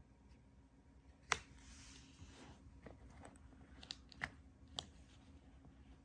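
Faint handling sounds of plastic hair dryer parts and a power cord being picked up: one sharp click about a second in with a short rustle after it, then a few lighter clicks and taps.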